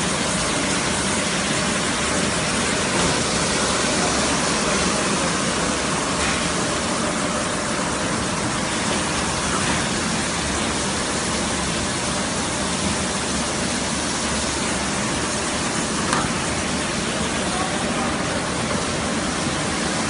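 Automatic carpet washing machine running: a steady, even mechanical noise that holds its level throughout, with one brief click about sixteen seconds in.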